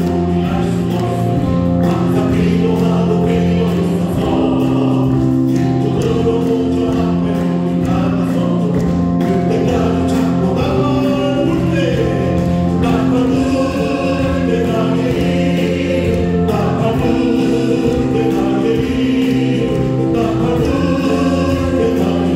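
Church praise team singing a gospel song together, backed by a live band of keyboard, drums and bass guitar, with held keyboard chords under the voices.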